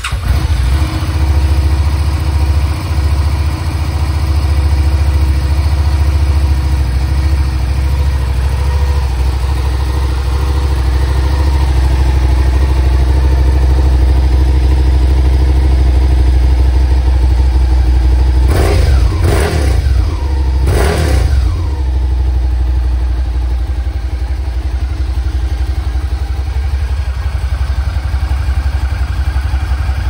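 Suzuki SV650X's 645 cc V-twin idling steadily through its stock exhaust while still cold. About two-thirds of the way through, a few quick throttle blips make the revs rise and fall before it settles back to idle.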